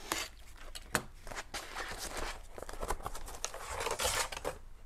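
A small knife cutting through a thick kraft-paper tube, with scratchy slicing and little clicks, then the kraft paper rustling and crackling as it is unrolled near the end.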